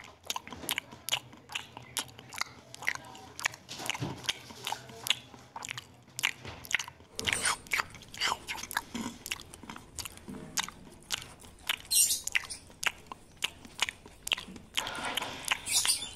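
A long-tailed macaque eating close to the microphone: rapid wet chewing and smacking clicks, several a second and irregular, as it chews rice and then stir-fried water spinach.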